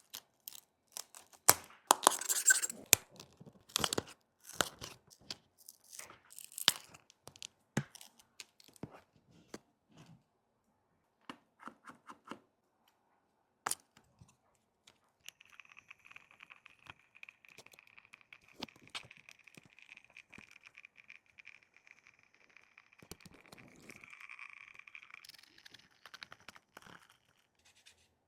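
Repair handling on a cracked iPhone 17 Pro Max back: a run of sharp clicks, scrapes and tearing noises for the first half. Then a faint steady high whine runs for about ten seconds, with a few clicks near the end.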